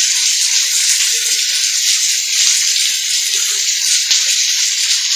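Heavy thunderstorm rain pouring down steadily, a dense hiss of drops with a couple of faint ticks of individual drops.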